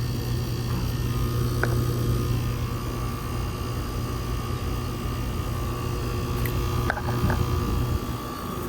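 Bryant central air-conditioner condensing unit running, its outdoor fan and Copeland scroll compressor giving a steady low hum and whoosh. A faint thin whine comes in about a second in and drops out near the end, with a few light clicks shortly before.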